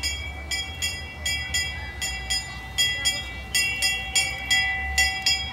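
Locomotive-style bell of an Expresso Mágico trackless children's train, ringing rapidly at about four strikes a second as the train drives past, over a steady hum.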